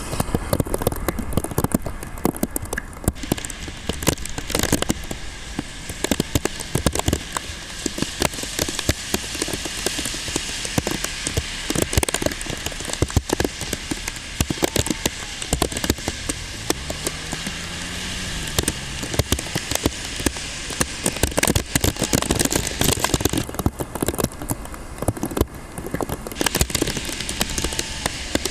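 Heavy typhoon rain: a dense, steady crackle of drops.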